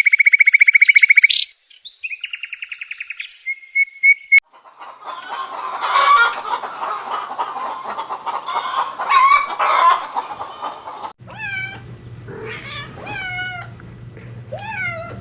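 Farm animal and bird calls in three separate stretches. First a rapid, fast-pulsed high trill that stops about four seconds in, then a noisier stretch with loud calls, then from about eleven seconds a series of separate calls that rise and fall in pitch over a steady low hum.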